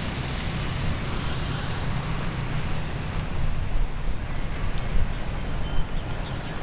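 Low rumble of wind on the microphone, with a few short, high, falling chirps from birds around the middle.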